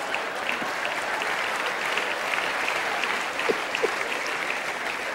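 Theatre audience applauding, with laughter mixed in, as a reaction to a joke.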